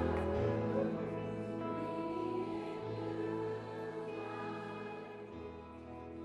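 Live worship band playing soft held chords over a bass note that changes every few seconds, gradually getting quieter as the song dies away.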